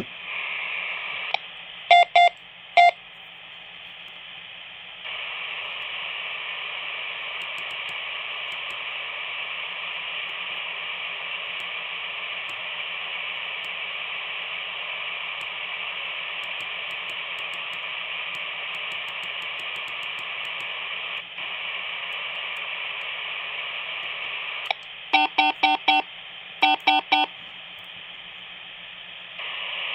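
Quansheng UV-K5 handheld radios hissing from the speaker with the squelch open, the hiss stepping up about five seconds in. Short groups of rapid Morse-code (CW) tone beeps cut in: two about two seconds in and three in a row near the end.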